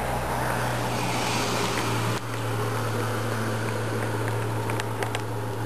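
A steady low hum over a bed of outdoor background noise, changing abruptly about two seconds in. Near the end come a few faint small clicks, as an eastern gray squirrel eats dried corn kernels from a gloved hand.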